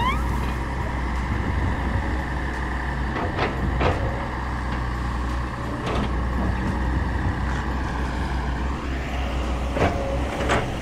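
Diesel truck engine running steadily as the tractor unit slowly pulls a lowboy trailer carrying a road roller, with a few sharp clanks. The engine note rises a little near the end.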